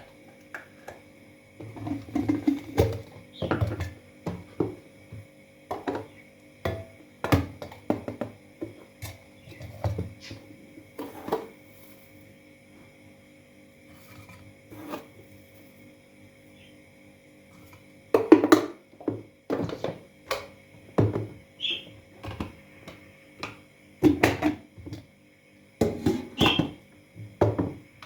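Irregular knocks, taps and clatters of kitchen utensils and dishes being handled, in two busy stretches with a lull between them, over a faint steady hum.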